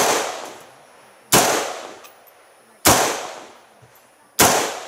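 AR-15-style semi-automatic rifle fired four times in slow, steady succession, about a second and a half apart, each shot trailing off in a long echo.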